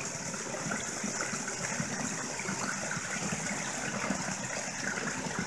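Steady rush of a small waterfall: a creek trickling down a narrow gully in a cliff.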